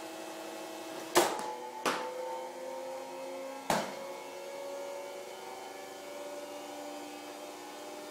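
Three sharp knocks of a baseball bouncing and being fielded, the first the loudest, over a steady background hum.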